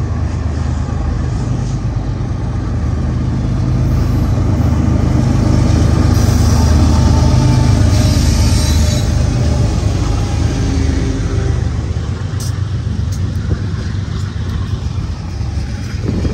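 A lashup of BNSF diesel locomotives hauling a freight train passes close by, their engines making a steady low drone that builds to its loudest about six to nine seconds in as the lead units go past, then eases off.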